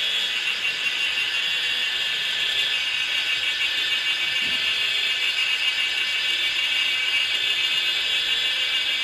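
Steady high-pitched insect chorus, a buzzing trill that holds without a break.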